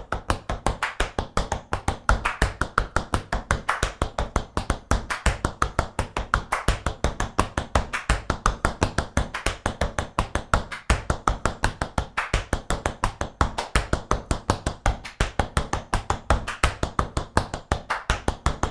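Tap shoes' metal taps striking a wooden floor in a fast, unbroken stream of toe and heel beats, a tap drill danced without pause.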